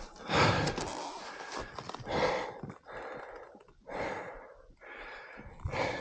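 A person breathing heavily from exertion, with a loud breath about every two seconds.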